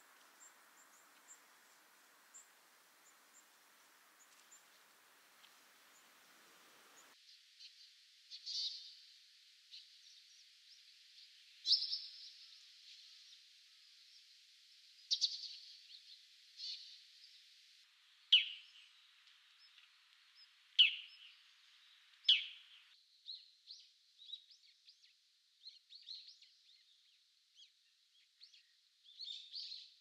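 Eurasian tree sparrow giving single sharp chirps a few seconds apart, about seven in all, from about eight seconds in; the later ones fall in pitch. Faint high twittering of small birds follows near the end.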